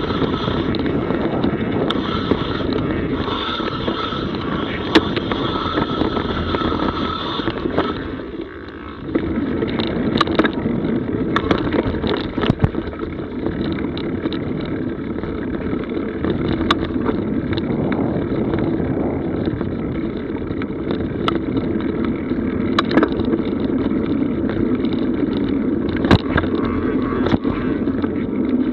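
Mountain bike rolling over a forest dirt trail: a steady rumble of tyres and wind, with frequent sharp clicks and rattles from the bike over bumps. The rumble drops briefly about eight seconds in.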